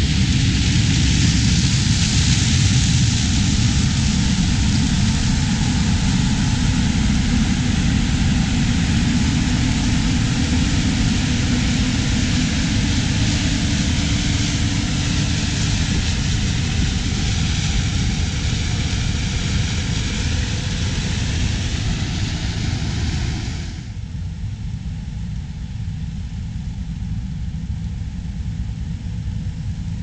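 New Holland CR9090 combine running while harvesting corn: a steady, loud machine drone with the rush of stalks going through the corn head. Near the end it drops sharply to a quieter, duller rumble.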